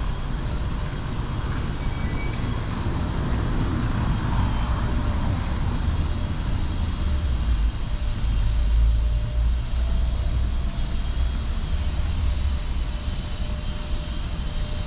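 Steady low rumble of city street traffic, swelling a little about halfway through.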